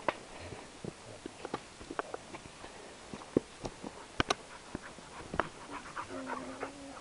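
Irregular footsteps crunching and brushing through dry grass, leaves and twigs while walking a trail. Near the end comes a short steady whine lasting under a second.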